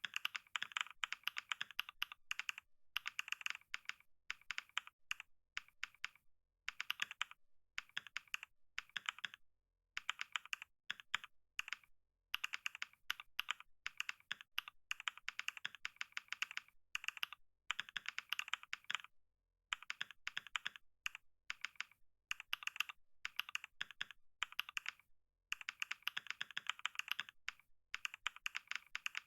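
Typing on a computer keyboard: a quick, uneven stream of key clicks in runs, broken by brief pauses every few seconds.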